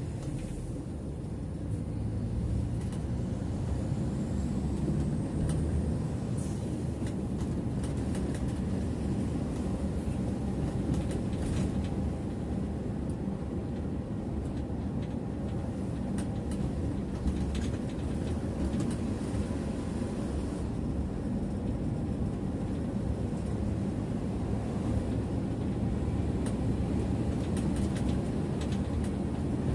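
Mercedes-Benz bus driving at steady speed, heard from the driver's seat: a continuous low engine and road rumble, with a few light clicks and rattles scattered through it.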